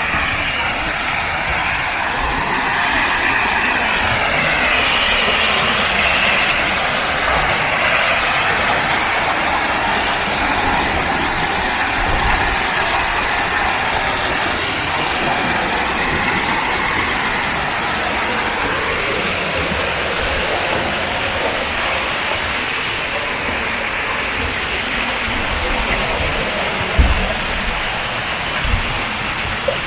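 Water pouring from several stone spouts into a pool, a steady rushing splash. A couple of brief low thumps near the end.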